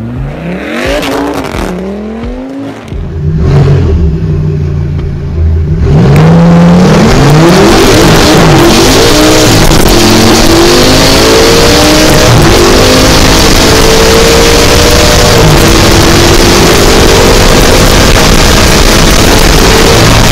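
A car engine revving hard as a car pulls away, then, after a cut, a car accelerating flat out through several gears heard from inside the cabin: the engine pitch climbs in steps, dropping back at each upshift and rising more slowly in each higher gear, under loud wind and road roar.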